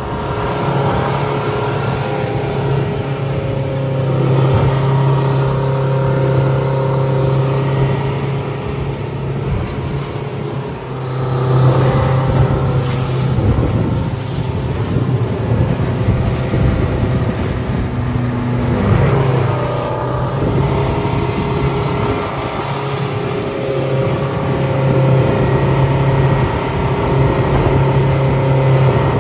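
A boat's outboard motor running steadily under way, over the hiss of wind and water. The engine's pitch shifts briefly about two-thirds of the way through, then settles back.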